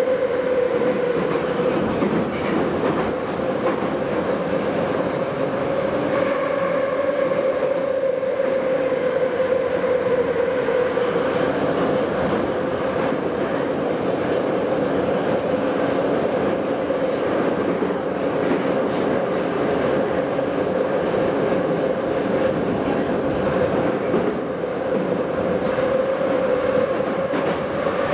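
Heard from inside the car, an 81-717/714.5 metro train runs at speed through a tunnel, a steady loud roar of wheels on rail. Under the roar is a constant droning hum that sags a little midway and climbs again near the end.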